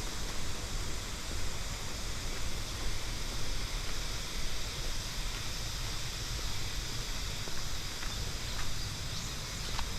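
Steady outdoor ambience: an even hiss with low rumble, and a few faint short chirps from birds or insects near the end.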